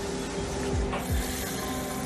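Ominous film-score music: steady sustained tones over a low double thump that drops in pitch and repeats about every second and a half, like a heartbeat. There is a brief mechanical rattle about a second in.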